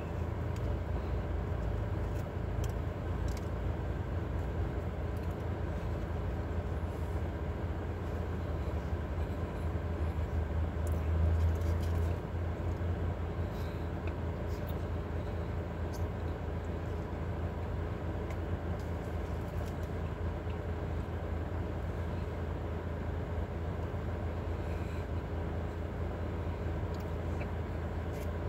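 Steady low rumble and hum heard inside a car cabin, swelling briefly about ten seconds in, with a few faint clicks.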